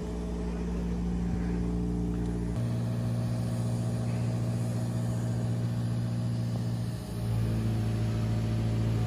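Engine of construction machinery running steadily, its note changing about two and a half seconds in and again near seven seconds. This is the noise of nearby construction works.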